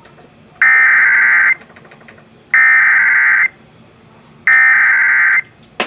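Emergency Alert System SAME header: three bursts of buzzing digital data tones, each about a second long with about a second between them, encoding a flash flood warning.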